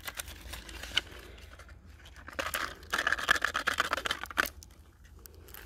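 Small cardboard box of Weco Knatterfritze crackers being tipped and shaken, the little paper tubes dropping onto asphalt with light rustling and clicking. The rustling and clicking is densest around the middle.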